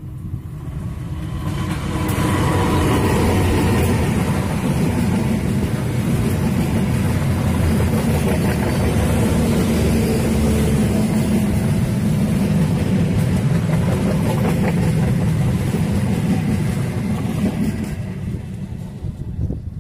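Passenger train hauled by a diesel locomotive passing close by: the locomotive's engine swells to full loudness about two seconds in, followed by a long steady run of coach wheels on the rails that fades near the end.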